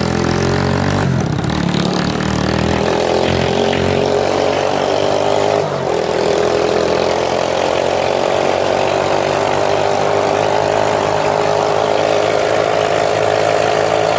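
Small engine of a homemade go-kart running steadily while the kart is driven along a road, with a brief dip about six seconds in.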